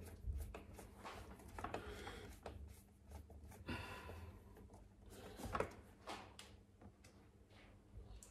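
Faint clicks and scrapes of a hand screwdriver driving small screws through a plastic inner fender into an RC truck's chassis plate, with a brief rasp about four seconds in and a sharper click a little later.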